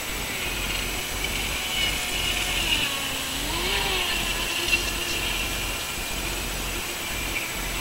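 Atomik Barbwire RC speedboat running fast on the water, its motor giving a thin whine over a high hiss. The whine dips in pitch about three seconds in and climbs back.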